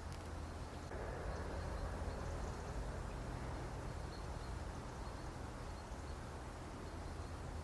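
Mosquito buzzing in a steady haze, its whine swelling about a second in, over a low background hum.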